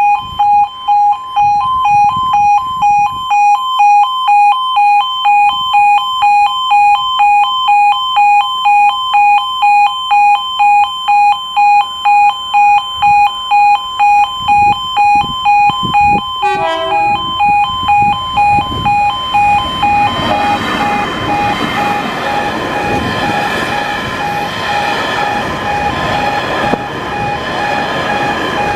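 Level crossing warning alarm sounding in a steady on-off pulse, about one and a half beeps a second, with a brief falling tone about halfway through. In the last third a freight train comes through the crossing, its rumble and wagon clatter rising under the alarm.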